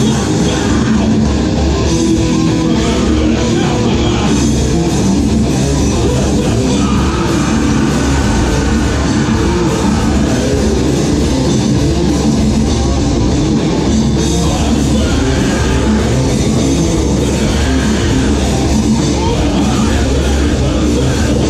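A heavy rock band playing live and loud: electric guitar, bass guitar and drum kit, with a vocalist singing into a handheld microphone.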